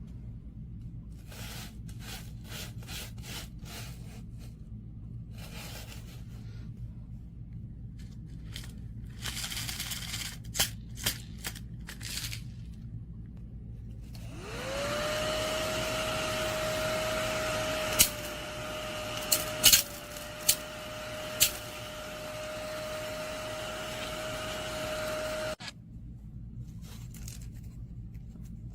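A mini desktop vacuum cleaner's small motor switches on about fourteen seconds in, spinning up quickly to a steady whine, with a few sharp clicks while it runs, then cuts off suddenly about eleven seconds later. Before it, light scattered clicks and rustles of handling.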